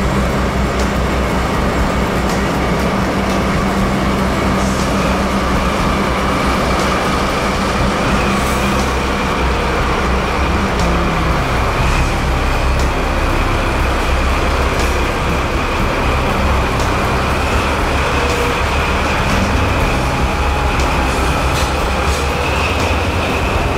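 A pair of JR DD51 diesel-hydraulic locomotives running under power as they haul a train of sleeper coaches slowly past along a platform: a steady low engine drone with a steady high whine over it.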